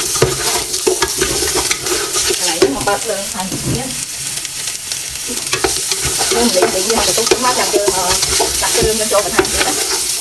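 Chunks of pig's trotter sizzling in the bottom of an aluminium stockpot while a plastic spatula stirs and turns them, with a steady hiss and frequent scrapes and knocks of the spatula against the pot.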